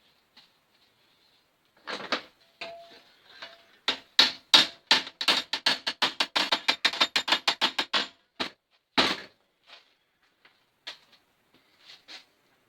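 Hammer tapping a hand-made sheet-steel repair panel into shape. A few scattered knocks, then a quick even run of light taps, about seven a second for some four seconds, then a few more scattered taps.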